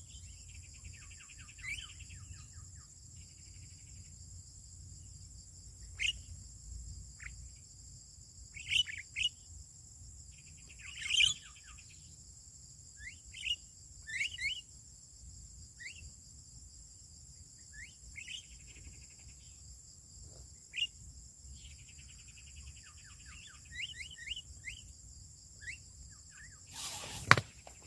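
Songbirds calling: repeated short chirps and quick whistled sweeps, with several stretches of rapid buzzy trills, over a steady high hiss. A single sharp knock near the end is the loudest sound.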